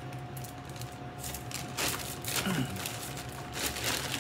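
Quiet room with a steady electrical hum and a few soft rustles of items and packaging being handled; a brief faint voice sound about two and a half seconds in.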